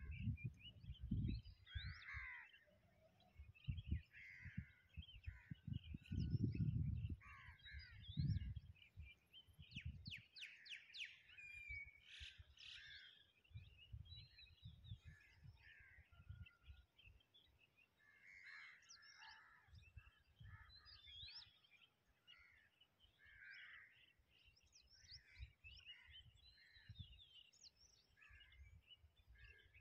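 Faint birdsong: several birds calling and chirping, with a busier flurry of quick calls about ten to thirteen seconds in. Low gusts of wind buffet the microphone now and then, mostly in the first eight seconds.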